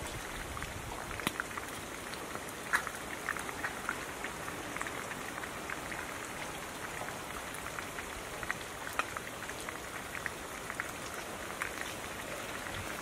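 Lime wedges squeezed by hand over a clay mortar, juice dripping in with small irregular ticks and patters over a steady hiss.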